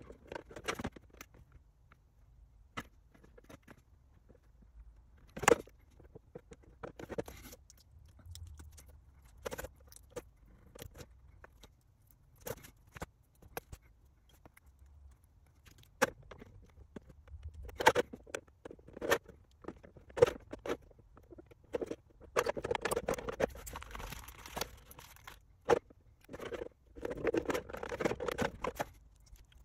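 Scattered sharp clicks and taps with stretches of rustling and scraping, from small plastic model-kit parts being handled and fitted by hand.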